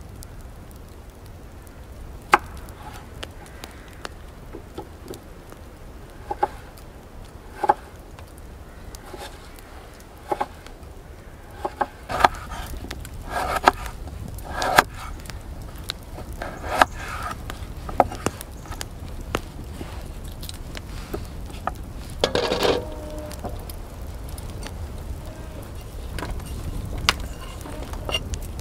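Knife cutting raw potatoes on a wooden board: irregular sharp knocks as the blade hits the wood, over a steady low background rumble.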